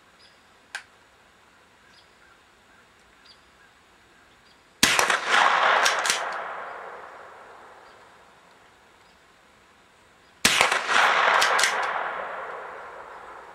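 Two .22 LR shots from a Remington 572 pump-action rifle, about five and a half seconds apart. Each sharp report is followed within a second by a quick cluster of clicks and a long fading rush.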